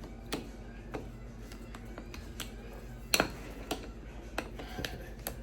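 Small metal clicks and taps at irregular intervals, one much louder about three seconds in: steel screws and a screwdriver being worked against a compression driver's magnet, which pulls the screws back onto it. A steady low hum runs underneath.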